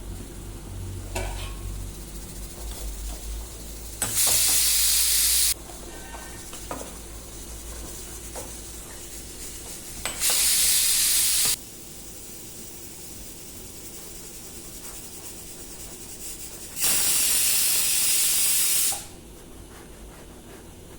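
Three loud bursts of hissing, each lasting one and a half to two seconds and starting and stopping abruptly, like steam or a spray being released, with a few faint knocks in between.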